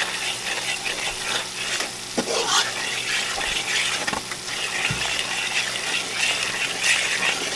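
Flour and grease frying in a skillet, sizzling steadily while a metal fork stirs and scrapes through it in irregular strokes: a gravy roux being browned.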